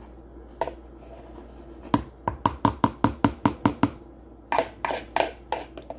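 Metal spoon tapping against a plastic bowl's rim to knock thick milkshake out into a cup: a quick run of about a dozen sharp taps, then a few more near the end.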